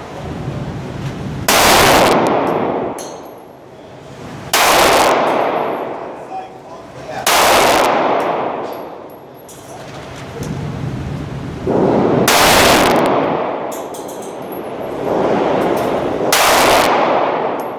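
Slow, single gunshots: five loud reports several seconds apart, each with a long echoing tail, and a few fainter shots between them.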